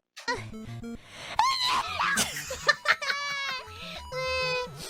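High-pitched female voices squealing and laughing in quick succession over light background music.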